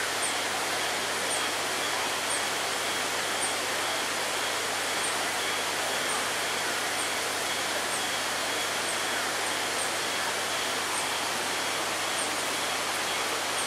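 Steady outdoor ambience: an even hiss with no break or change, and a faint, short, high chirp repeating about once a second.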